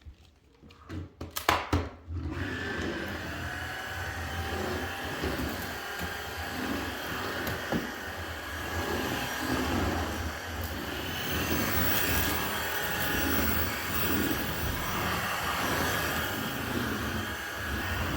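A few clicks and knocks of handling, then an electric appliance's motor switches on about two seconds in and runs steadily.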